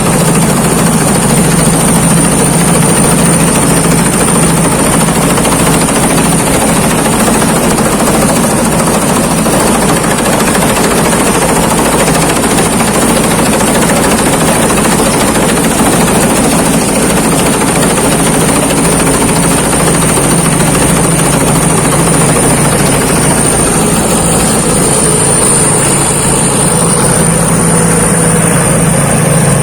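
Thai Seng rice combine harvester running while harvesting: a loud, steady engine drone with a thin high whine over it.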